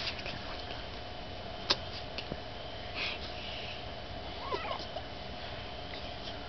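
Young infant cooing: one short, wavering vocal sound about two-thirds of the way in. A sharp click about two seconds earlier is the loudest moment.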